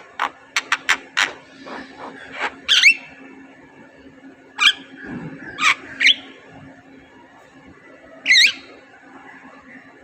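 Javan myna calling: a run of short clicking notes in the first second and a half, then separate harsh, wavering calls every second or two, the loudest about three and eight seconds in, over a faint steady hum.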